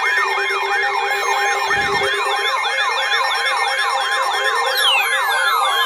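Layered electronic sirens: one yelps up and down about four times a second over a steadier wavering high tone. A brief low rumble comes about two seconds in, and near the end another siren tone falls steeply in pitch.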